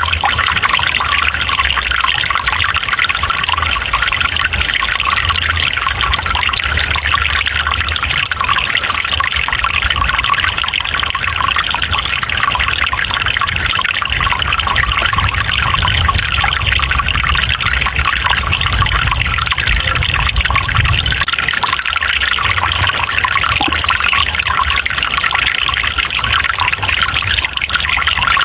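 Water running and trickling steadily, as of a forest stream, a constant splashing hiss with a low rumble beneath.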